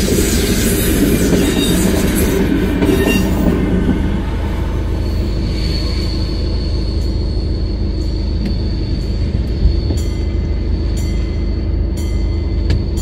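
HŽ series 7122 diesel-hydraulic railcar running along the track. It is loud for the first few seconds, then from about five seconds in a steady high-pitched wheel squeal holds, with irregular clicks of wheels over rail joints.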